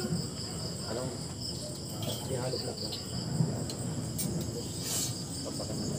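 Crickets chirring steadily in a continuous high trill, under faint low voices and a couple of light clicks about four and five seconds in.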